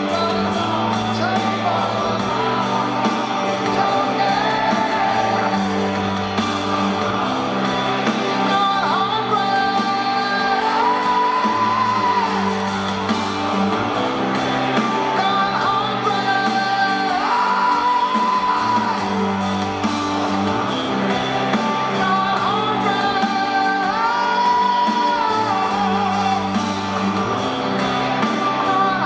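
Live rock band playing a slow song: a male lead vocalist sings a long held melody over electric guitar, bass and drums, whose low chord pattern repeats every few seconds. It is an audience recording in a large arena, with hall echo.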